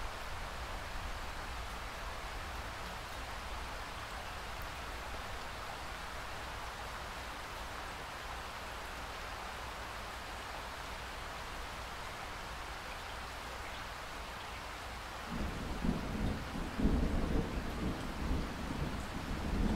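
Steady rain hissing. About fifteen seconds in, a low, uneven rumble of thunder begins.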